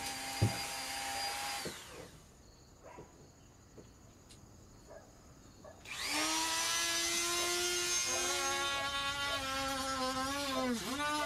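Dremel rotary tool with a cut-off wheel whining at speed, winding down about two seconds in, then starting up again after a quiet pause of a few seconds. Toward the end its pitch dips again and again as the wheel bogs while cutting into the camper's ABS ceiling along a crack.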